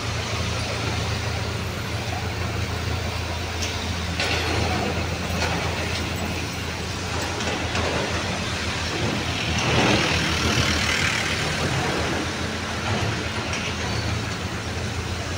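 Street traffic with a heavy vehicle's engine running steadily nearby. A louder hissing swell comes about ten seconds in.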